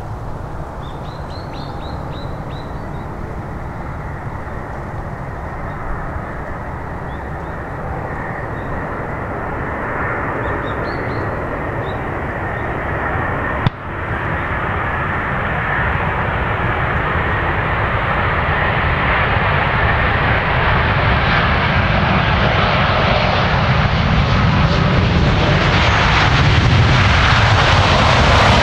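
Rolls-Royce Trent 1000 turbofan engines of a Boeing 787-8 on landing approach: a steady jet rumble and hiss that grows louder and brighter as the airliner closes in, loudest near the end as it comes over the runway.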